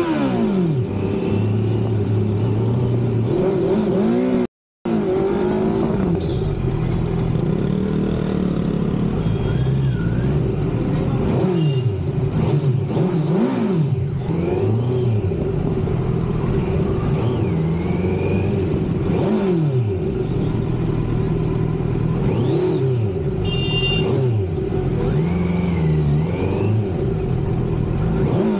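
Kawasaki Z900's inline-four engine being ridden and revved, its exhaust note rising and falling again and again with throttle blips and gear changes. The sound cuts out for a moment about four and a half seconds in, and a brief high-pitched tone sounds a few seconds before the end.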